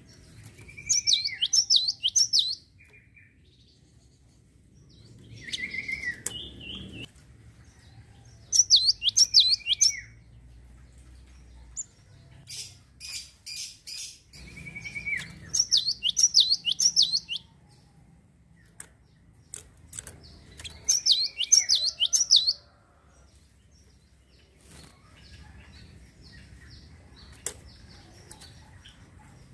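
Java sparrow (gelatik) singing: bursts of rapid high chirps, each lasting one to two seconds, repeating every few seconds, most opening with a lower falling note. A run of short clicks falls between songs near the middle.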